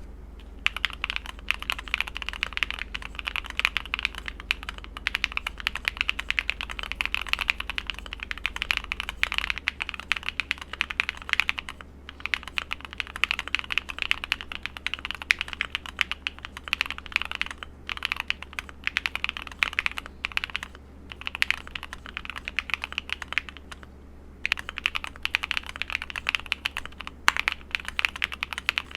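Luminkey80 mechanical keyboard with Gateron Sylva switches being typed on fast: a dense run of keystroke clacks, broken by a few short pauses.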